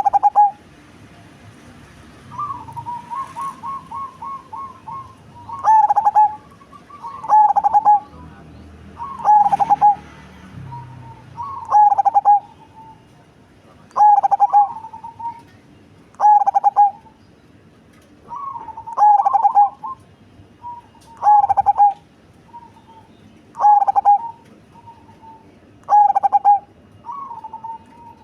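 Perkutut cemani (black zebra dove) singing with a big, bassy voice: loud coo phrases repeated about every two seconds, after a softer quick run of staccato notes near the start.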